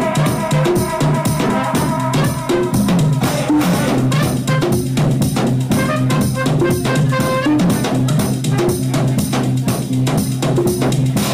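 House music played by a DJ: a steady, driving drum beat with kick and snare over a stepping bass line and held chords.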